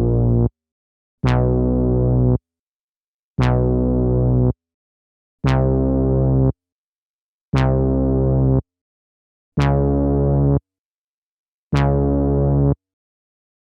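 A sampled synthesizer-like note played back from an Akai MPC sampler, triggered over and over: each note about a second long with a sharp attack and rich overtones, repeating about every two seconds with silence between.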